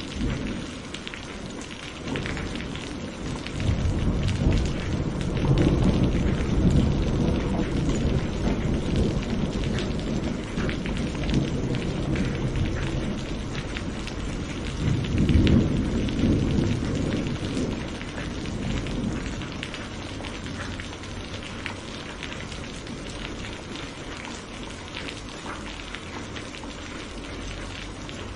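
Steady rain falling with scattered drop patter, under a long roll of thunder that builds a few seconds in, swells again around the middle and dies away in the last third.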